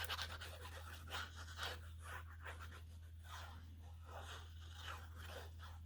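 Faint rustling and scraping of cardstock being handled and slid on a work surface, in short irregular bits, over a steady low hum.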